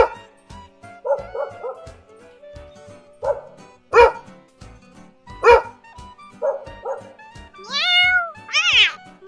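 A dog barking: loud single barks near the start, about four seconds in and about five and a half seconds in, with groups of quicker, shorter yaps between them. A cat meows twice near the end, over background music.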